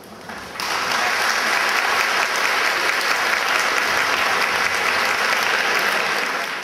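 Audience applauding: clapping breaks out suddenly about half a second in and carries on steadily.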